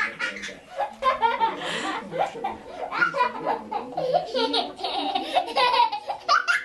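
A baby laughing hard in repeated bursts of belly laughs.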